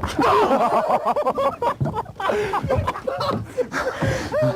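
Several men laughing and whooping over one another, with no clear words.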